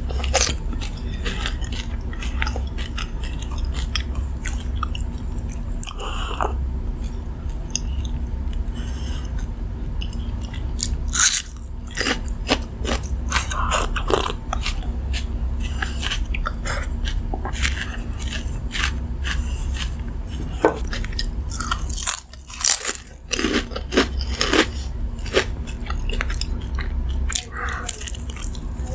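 Close-miked chewing and crunching of a South Indian meal eaten by hand, with crisp fried foods and raw onion giving many sharp crunches and wet mouth clicks, over a steady low hum.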